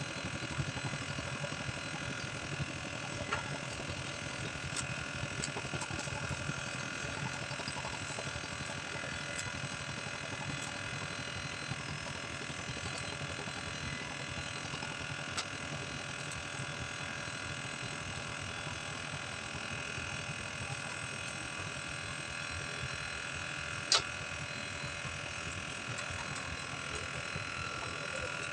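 A steady motor drone with a low hum and several steady higher tones, and a single sharp click about 24 seconds in.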